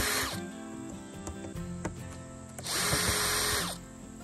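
DeWalt 20V MAX cordless drill running in two short bursts, backing out the screws that hold the feeder's cone in place: a first run that stops about half a second in, then a second run of about a second near the end, each spinning up and winding down.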